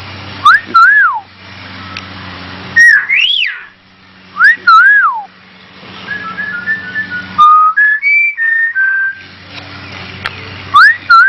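Cockatiel whistling: several loud swooping whistles that rise and fall, then a run of short stepped notes like a phone ringtone tune, and another swoop near the end. The bird is mimicking a cell phone ringtone.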